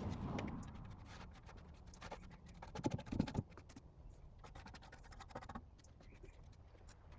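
A paintbrush scratching over a metal lawn mower deck as paint stripper is brushed on: light, irregular scratchy strokes and small clicks, coming in clusters.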